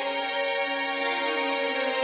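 Background music: slow, sustained notes.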